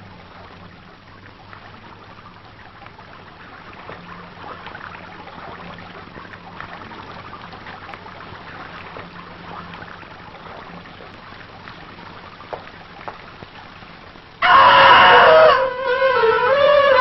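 Fountain water splashing steadily. Near the end a sudden loud dramatic orchestral sting cuts in, led by strings and gliding in pitch.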